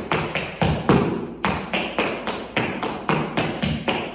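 Tap shoes striking a hard studio floor in a quick run of sharp taps, several a second in an uneven rhythm, each ringing briefly in the room. The taps are a step, spank, heel, toe, heel tap sequence.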